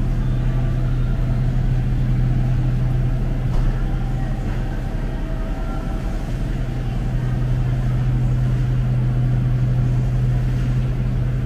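Steady low mechanical hum of supermarket refrigerated display cases and ventilation, easing a little about halfway through.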